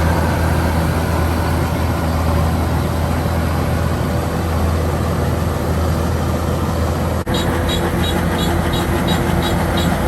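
Kubota DC-105X combine harvester's diesel engine running steadily under load. About seven seconds in the sound breaks for a moment, and afterwards a fast, regular high ticking runs alongside the engine.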